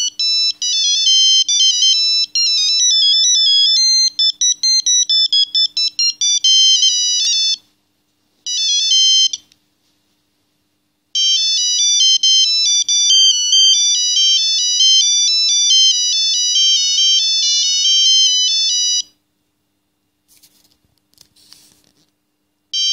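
Philips Xenium 989 mobile phone playing its built-in ringtones one after another through its small speaker: a high-pitched melody with several notes at once that stops about 7.5 seconds in, a one-second snippet near 9 seconds, then another melody from about 11 to 19 seconds, and the start of the next tune at the very end.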